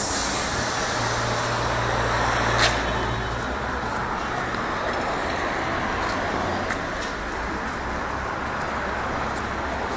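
Street traffic noise: a steady rush of passing vehicles, with a low hum under it for the first few seconds and one sharp click about two and a half seconds in.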